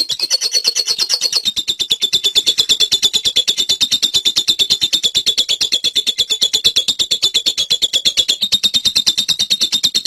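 Fischer's lovebird chattering in one long unbroken run of rapid, high notes at about eight a second: the 'ngekek panjang' (long chatter) prized in lovebird song contests.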